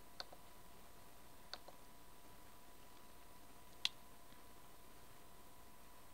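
Three single computer mouse clicks, a second or two apart, the last one the loudest, over a faint steady electrical tone.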